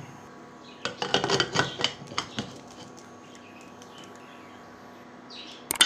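Aluminium Ideal pressure cooker lid clattering and clicking for about a second and a half as it is fitted and locked onto the cooker, then a couple of sharp metallic clicks near the end.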